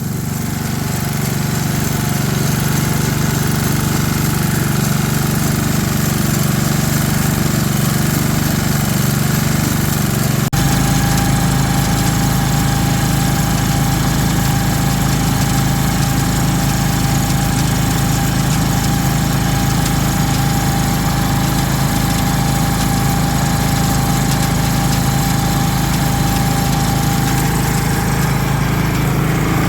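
Ryan core aerator's small gasoline engine running steadily. About ten seconds in the sound changes abruptly, and a steady higher whine joins the engine note.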